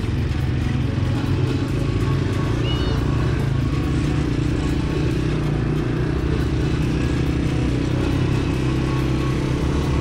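CFMoto CForce 400 ATV's 398 cc single-cylinder four-stroke engine running steadily while riding along a dirt trail.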